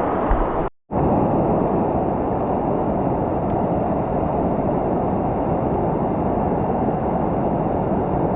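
Waterfalls rushing steadily, with a split-second drop to silence just under a second in.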